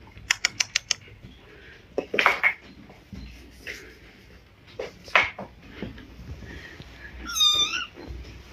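Kittens mewing: short mews about two and five seconds in, and a higher, wavering mew near the end. A quick run of light clicks in the first second.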